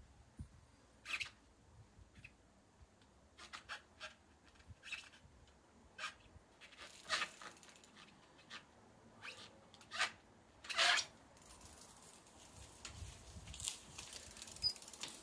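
BMX bike knocking and clattering against a wooden stand it is not strapped to: irregular sharp knocks, the loudest about seven, ten and eleven seconds in, then a faint rustling hiss near the end.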